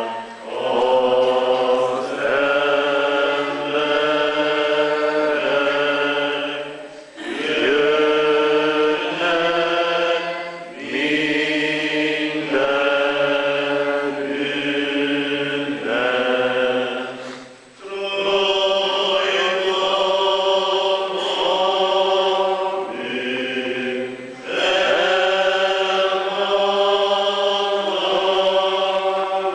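A church congregation singing a slow hymn in long held notes, line by line, with a short break for breath between phrases.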